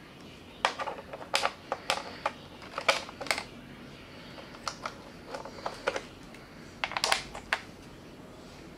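Sharp clicks and taps from hands handling an A.P.S. UAR501B airsoft rifle's body, coming in short runs with pauses between.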